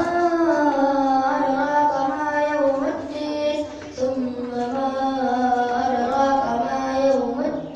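A child reciting the Qur'an in melodic qiroah style, unaccompanied, drawing out long ornamented notes that bend slowly in pitch, with short breaks about three and four seconds in.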